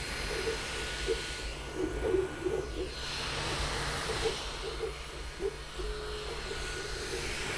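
Creality Ender-2 Pro 3D printer running a print, heard close up: a steady whir and hiss from its cooling fans, with ever so slight stepper motor tones that change pitch in quick short steps as the print head travels fast.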